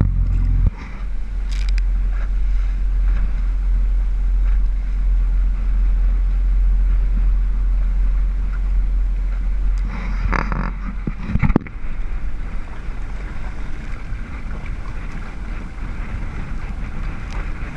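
Wind buffeting the microphone aboard a moving boat: a steady low rumble over the boat's running noise and water, which eases about eleven seconds in, just after a sharp knock.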